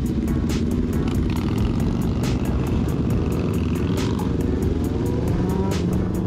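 Motorcycle engine running under way, its pitch rising in the second half, mixed with background music with a steady beat.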